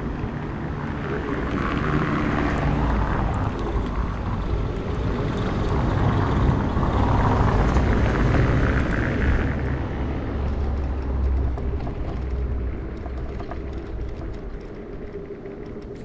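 Wind rushing over the action-camera microphone and tyre rumble from a Bird electric scooter rolling over pavement. It swells in the middle and eases off near the end.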